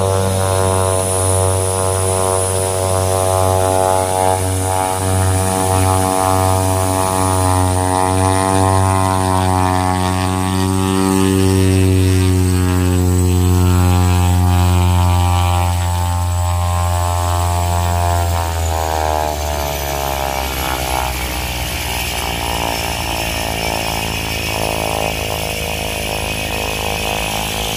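Cessna Caravan single-engine turboprop taxiing uphill under power: a steady propeller and engine drone that wavers in pitch, then slides down and eases off about two-thirds through as power comes back.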